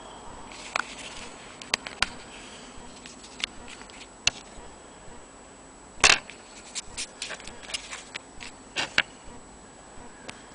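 Irregular clicks and rustles of a stitched leather and fabric piece being handled, with one sharper knock about six seconds in.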